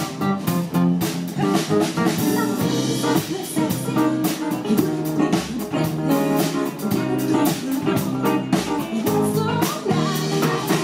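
Live pop band playing: a woman singing over electric guitars, drum kit and keyboard, with a steady beat.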